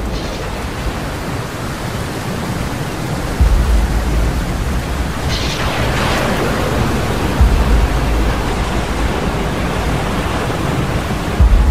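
Storm noise: a steady rush of heavy rain and wind, with a low rumbling burst about every four seconds.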